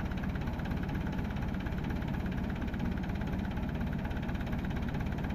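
Massey Ferguson tractor's diesel engine idling steadily with an even beat.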